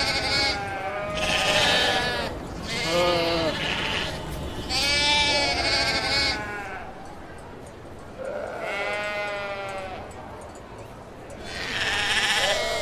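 Sheep bleating, about six wavering calls one after another at different pitches, one of them lower, with a short lull in the middle and another bleat near the end.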